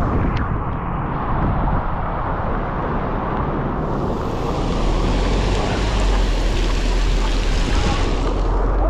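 Heavy rain pouring down on a flooded street: a steady rushing noise that grows brighter about four seconds in, with a deep rumble underneath.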